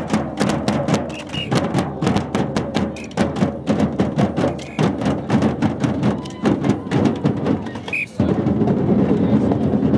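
Marching band drums in a street procession beating a fast, steady rhythm. The drumming stops about eight seconds in and a denser hubbub with voices takes over.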